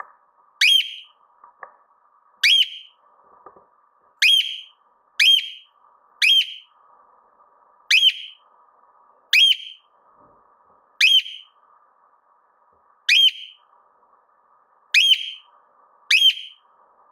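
A cockatiel giving short, shrill whistled calls over and over, each one sharply rising, about one every one to two seconds.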